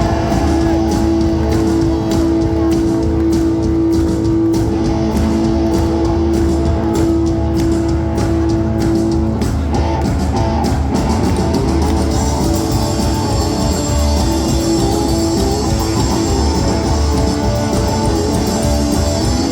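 Live rockabilly band playing loud and steady, with electric guitar, bass and drums. A long held note rings for the first nine seconds or so, then breaks off.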